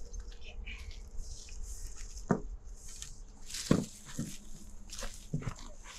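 A dog giving a few short, separate barks, about four spread over the seconds, the loudest a little past the middle.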